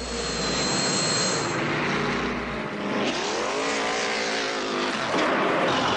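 Cartoon sound effect of a jet aircraft's engines: a continuous rushing roar with a thin high whistle at first, then a whine that rises and falls around the middle.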